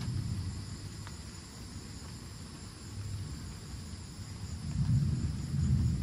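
Distant thunder rumbling low and long, easing off in the middle and swelling again about five seconds in, over a steady high drone of insects.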